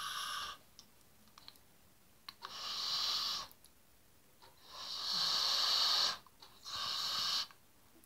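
Beatbox tongue whisper: air forced hissing between the back of the tongue and the back of the roof of the mouth, kept soft, done four times in bursts of about a second each. It is the whisper part of the hollow 'water drop' whistle.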